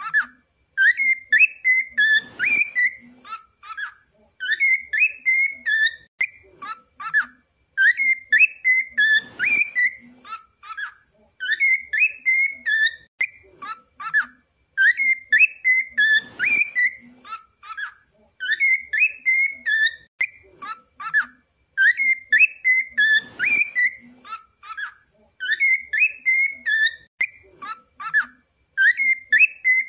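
Cockatiel whistling song: quick runs of short warbling whistled notes, the same sequence looping about every seven seconds.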